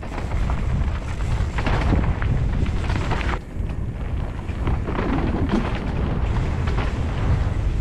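Mountain bike descending a dirt trail at speed: a steady low rumble of wind buffeting the mounted camera's microphone, mixed with tyre noise on the dirt and short rattles from the bike over bumps.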